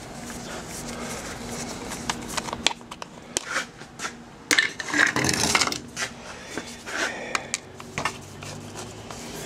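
Hand tools clinking and scraping on metal, a scatter of sharp clicks with a louder rattle about five seconds in, as a screwdriver is set to the screws of a Yamaha XV750 V-twin's left engine cover.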